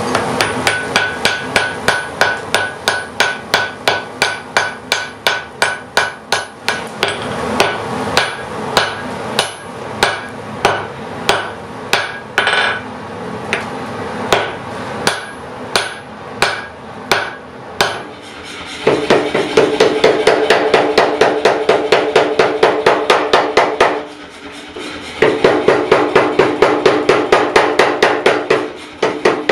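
Hammer blows on hot steel at the forge, forging a pattern-welded blade billet. First comes a run of strikes about two a second with a bright metallic ring. About two-thirds in, the blows change to a faster, even run of about five a second with a lower ring, broken once by a short pause near the end.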